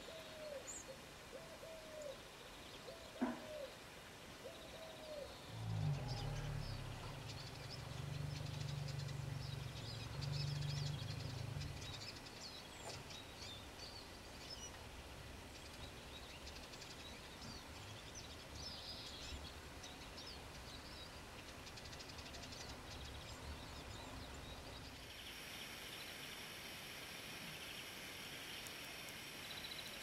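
Small wild birds chirping and calling with short, high notes scattered throughout. A low hum rises for several seconds in the middle, and there is a single sharp click early on.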